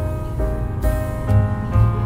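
Background music: a melody of held notes that change about twice a second, with low thumps beneath.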